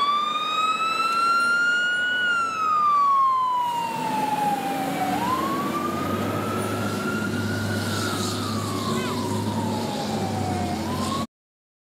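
Fire engine siren wailing, its pitch rising and falling slowly through two full cycles, with the truck's engine rumbling low underneath in the second half. The sound cuts off suddenly near the end as it begins another rise.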